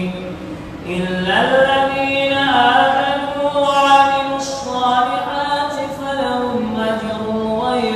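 An imam's voice reciting the Quran in a slow, melodic chant. After a short breath near the start, one long drawn-out phrase rises and then sinks slowly in steps.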